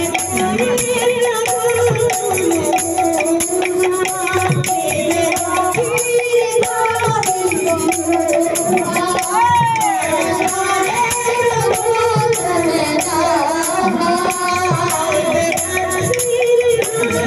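Live devotional kirtan music: a held, slowly moving melody, with a gliding ornament about halfway through, over a steady jangling of hand-held rattles or cymbals and drum strokes.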